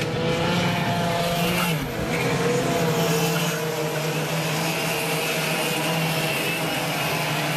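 Two-stroke racing kart engines running hard as karts lap the circuit, a steady high buzzing note. One engine's pitch drops and climbs again about two seconds in.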